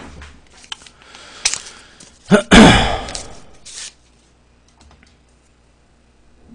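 Small clicks and knocks of a person handling things at a table, with one loud thump a little over two seconds in that fades away over about a second.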